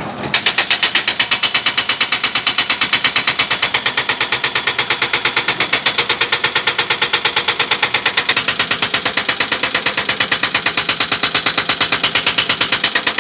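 Jackhammer pounding on stone in a steady, rapid run of blows, about seven a second, starting just after the beginning and keeping an even pace throughout.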